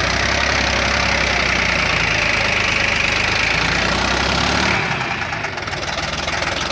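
Mahindra 275 DI XP Plus tractor's three-cylinder diesel engine running under load as it pulls a heavily loaded trolley through soft ground, rear tyres dug in. The sound drops and thins about three-quarters of the way through.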